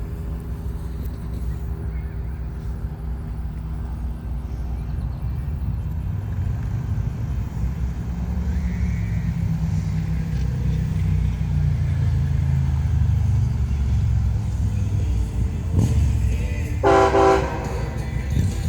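Diesel locomotive air horn giving one short honk near the end, over a low rumble that grows steadily louder as the intermodal freight train approaches.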